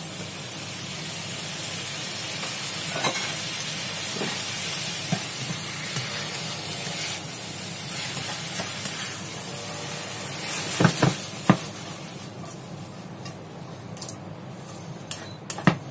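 Cauliflower and chicken strips sizzling in a hot wok just after a splash of soy sauce, while a spatula stirs them. The sizzle is steady at first and dies down in the second half, with a few sharp knocks of the spatula against the wok about two-thirds of the way through.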